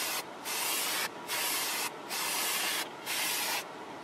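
Aerosol spray-paint can spraying a model passenger car side in a run of short hissing bursts, about one a second.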